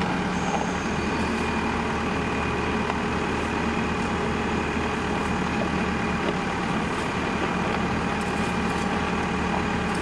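Engine of the machine that carries a hydraulic concrete mixing bucket, running steadily at an even idle-like hum.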